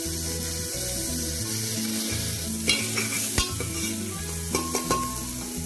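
Diced mixed vegetables sizzling in hot oil in an aluminium pressure cooker as they are stirred and sautéed with a spatula. From about halfway in there are a few short knocks and scrapes of the spatula against the pot.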